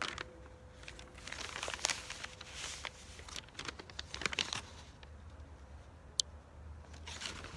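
Crinkling, rustling handling noise in several short bursts, with one sharp click about six seconds in. The last hum of a church bell dies away at the very start.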